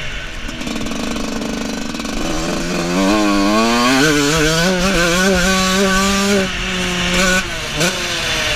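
A 125 cc two-stroke motocross bike's engine revving: it climbs in pitch about two seconds in as the rider accelerates, holds high with small wavers in pitch, then drops off near the end with a quick blip of the throttle.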